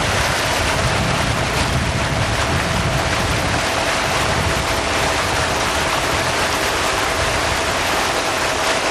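Steady rush of wind and water from a motorboat under way at speed, with a faint steady whine running underneath.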